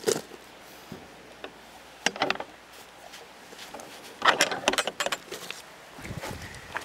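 Metal gate fastening, a snap clip on a ring on a wooden gate post, clinking and rattling as a hand unhooks it, with the loudest run of clinks about four seconds in. A duller knock near the end.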